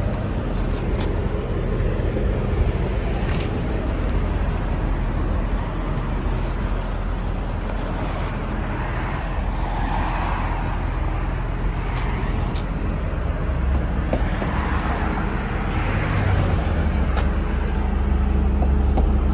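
Steady low vehicle rumble with traffic passing a few times, and a few faint clicks.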